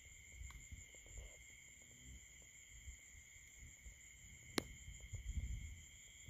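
Steady high-pitched chorus of night insects. Under it runs low rumbling handling noise, with one sharp click about four and a half seconds in and a brief louder rumble just after.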